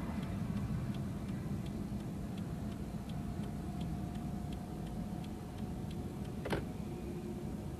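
Steady, even ticking, about three ticks a second, over a low hum, with one sharp click or clink about six and a half seconds in.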